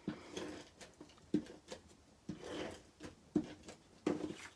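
Card stock and paper being handled and pressed into place on a craft table: about five light taps with soft paper rustling between them.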